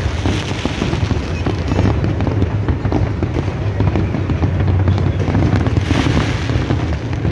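A dense fireworks barrage: many shells bursting in quick, overlapping succession, a continuous low rumble of booms with sharp cracks throughout.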